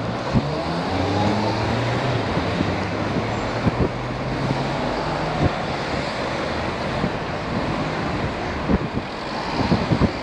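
City road traffic heard from a moving bicycle: a motor vehicle's engine runs close by, rising in pitch over the first couple of seconds, over steady road and wind noise. Occasional sharp knocks cut through, a few of them bunched near the end.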